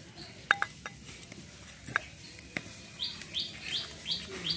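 A bird calling in a quick run of short, falling high chirps, about three a second, starting about three seconds in. Before it, a few sharp clicks from hands working in a clay bowl, the loudest about half a second in.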